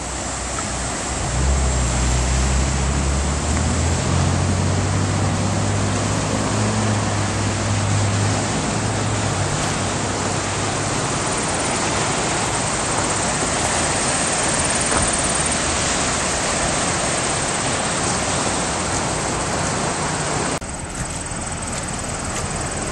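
Steady rush of fast-flowing floodwater from a swollen river. A low droning hum runs underneath for the first several seconds. The rush drops abruptly to a quieter level near the end.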